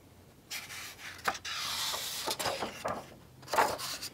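A hardcover picture book's page being turned by hand: paper rustling and sliding, with a few crisp crackles, and a louder swish near the end.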